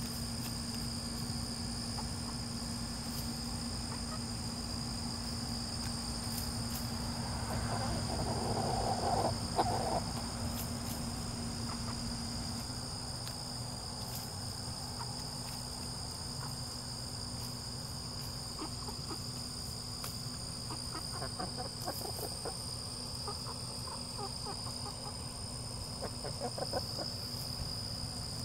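Insects sing steadily throughout as two constant high tones, while chickens cluck, loudest about eight to ten seconds in and again in short runs near the end. A low steady hum stops about twelve seconds in.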